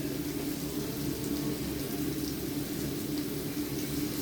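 Chicken breast frying in olive oil in a frying pan, a steady sizzle with a steady low hum underneath.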